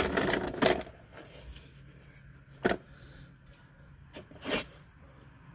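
Hand-handling noises as a rubber suspension air bag is folded and pushed into a truck's coil spring: a burst of rubbing and rustling at the start, then two short scrapes a couple of seconds apart.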